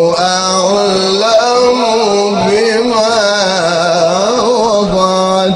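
A man chanting the Quran in melodic tajweed style, holding long notes with winding, ornamented turns in pitch.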